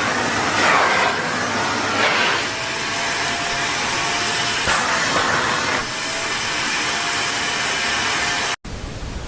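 Vacuum cleaner running, a steady rushing noise with a thin whine over it and a few brief swells. It cuts off abruptly near the end.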